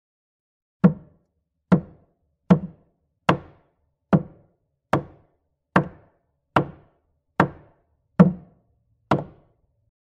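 A hammer striking wood eleven times at an even pace, a little more than one blow a second. Each blow is a short, sharp knock that dies away quickly.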